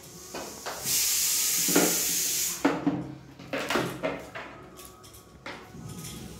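Boiled lentils being ground on a shil, a flat grinding stone, with a stone muller: a long scraping stroke about a second in, with scattered knocks of stone on stone.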